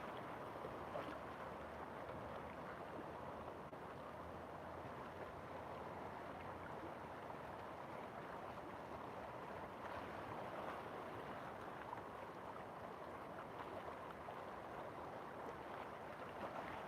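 River water flowing, a steady rush with no breaks.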